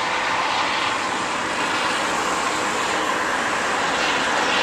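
Helicopter flying overhead, a steady, loud, even drone of rotor and engine noise.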